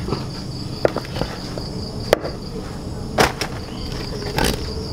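A heavy knife chopping through a softshell turtle's hard shell on a wooden block: four sharp knocks about a second apart. Under them is a steady, pulsing chirp of crickets.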